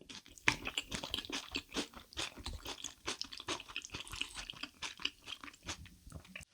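Close-miked chewing of crunchy food: a fast, dense run of crisp crunches that thins out just before the end.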